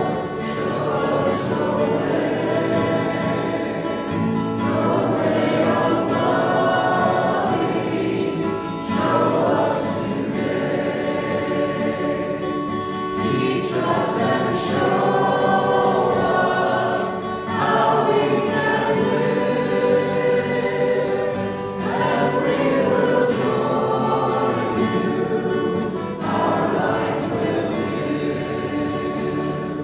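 Congregation singing a hymn together with accompaniment, in held phrases that pause briefly every few seconds.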